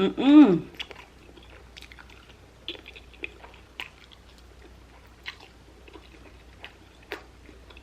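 Close-miked chewing and biting of food, heard as scattered small wet clicks through the mouth. It opens with a short pleased hum.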